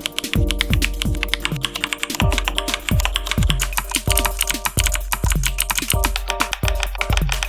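Fast mechanical-keyboard typing, a dense run of clicks, over electronic background music with a deep kick drum whose pitch falls on each beat.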